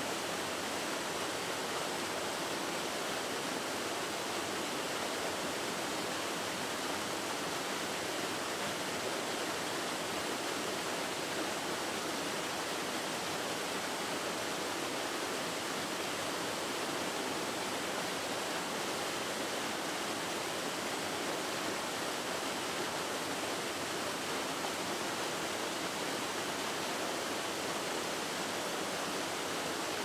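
Small waterfall on a mountain stream pouring into its plunge pool: a steady, unbroken rush of falling and splashing water.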